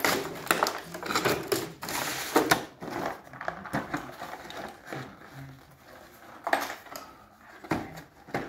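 Cardboard box and black plastic packaging tray being handled and lifted out: rustling, scraping and clicking, busiest in the first three seconds, then sparser with a few sharp knocks near the end.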